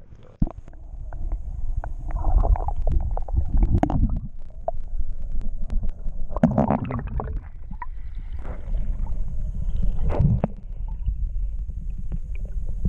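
Muffled low rumble and sloshing of lake water heard through a camera held underwater while a bass is released, with three louder swirls of water and scattered small clicks.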